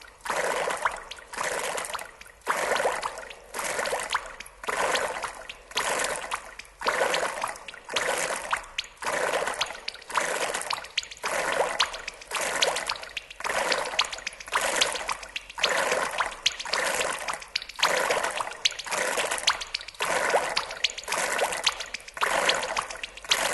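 Splashing water effects in a steady rhythm: a surge of splashing a little more than once a second, each swelling and fading away.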